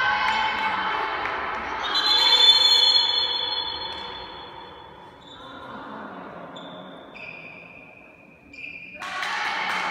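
Court sounds of a handball game echoing in a sports hall: high-pitched shoe squeaks on the floor and a ball bouncing, loudest a couple of seconds in and quieter in the middle.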